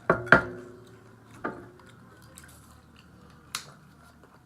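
A few sharp knocks and clicks of things being handled and set down on a table: two loud ones right at the start, the second with a short ringing after it, then two single clicks.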